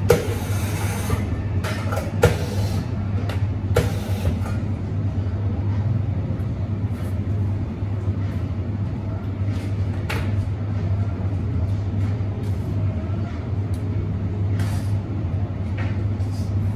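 Cafe bar sounds: a steady low machine hum under scattered clinks and knocks of cups, metal milk jugs and utensils on the bench. The sharpest knocks come in the first few seconds.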